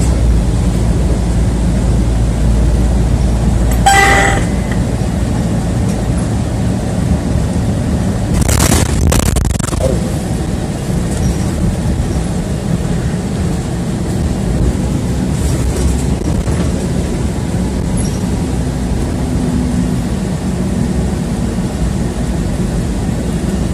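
City bus running, its engine and road rumble steady and low, heard from inside the cabin. About four seconds in a brief ringing tone sounds, and around nine seconds there is a short double clatter.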